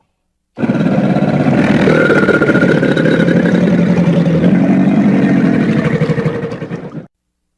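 Deinosuchus creature sound effect: one long, low growl with a fast pulsing rattle, about six seconds long, starting suddenly and cutting off.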